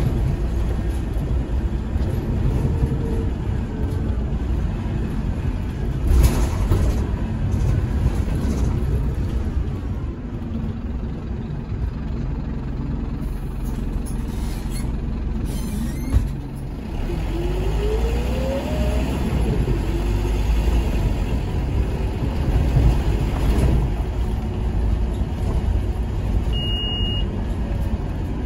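Scania K230UB Omnilink bus heard from inside the saloon: its rough-sounding five-cylinder diesel runs with a steady low rumble, and the loud ZF Ecomat automatic gearbox whines, rising in pitch as the bus picks up speed about two-thirds of the way through. A brief high beep sounds near the end.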